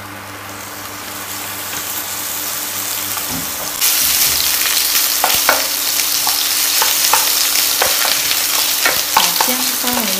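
Sliced ginger frying in oil in a hot nonstick wok, being fried until fragrant: a soft hiss that builds, then loud sizzling from about four seconds in. A wooden spatula clicks against the pan as the ginger is stirred.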